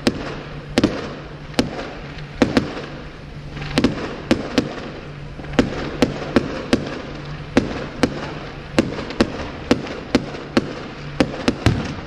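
Fireworks display: aerial firework shells bursting in an irregular run of sharp bangs, about two a second, over a continuous hiss.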